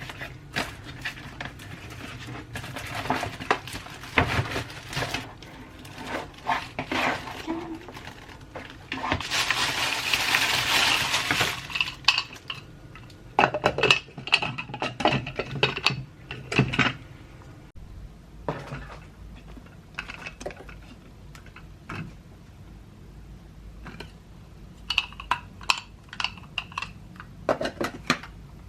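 Dishes and cutlery clinking and knocking in a kitchen, with a steady rush of noise for about three seconds in the middle.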